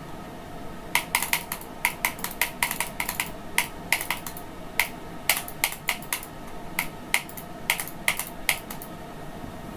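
Typing on a computer keyboard: irregular key clicks, several a second, starting about a second in and stopping near the end, over a faint steady hum.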